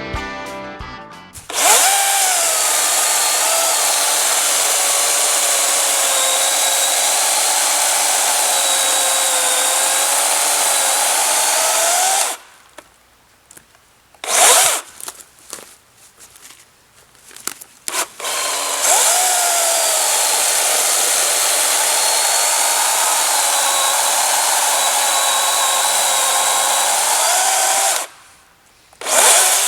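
Dewalt 60-volt brushless electric chainsaw cutting through an ash log in two long cuts, each about ten seconds. The motor's whine drops in pitch as the chain loads up in the wood and rises again as it breaks through. There are a few short blips of the chain between the cuts.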